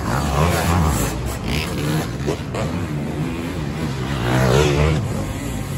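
Off-road racing dirt bike engines revving hard under load as riders climb a steep dirt hill, the pitch rising and falling with the throttle. One bike is loudest about four and a half seconds in as it comes up close.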